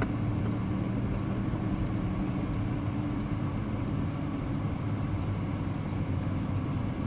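Ferrari 458 Italia's V8 engine running at low revs as the car rolls slowly, heard from inside the cabin as a steady low drone.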